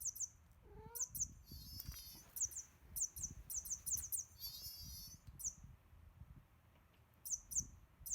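Battery-powered toy mouse squeaking 'chu-chu' in quick high chirps, in clusters of two to four, set off by vibration as it is batted about. A short rising cat call about a second in, and soft low thumps of play.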